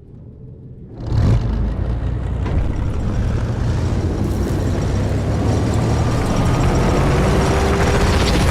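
Intro soundtrack with a heavy, steady bass under a dense rushing layer, fading in and then jumping louder about a second in.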